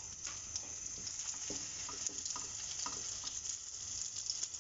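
Egg-coated potato cutlets (aloo tikki) shallow-frying in oil in a non-stick pan on a medium-to-low flame, giving a steady, gentle sizzle. A few light clicks come through as a fork turns the cutlets over in the pan.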